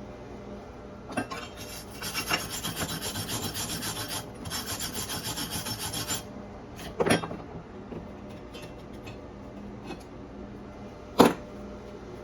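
Flux-core wire welder arc crackling for about four seconds, with a brief break in the middle, while a bead of E308L stainless flux-core wire is run at 50 amps on DC electrode negative. A knock comes about a second after the arc stops, and a sharper, louder knock comes near the end.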